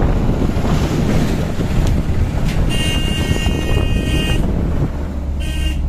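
Car driving along a rough dirt road, heard from inside: a steady low engine and road rumble with wind buffeting the microphone. A vehicle horn sounds for nearly two seconds in the middle, then briefly again near the end.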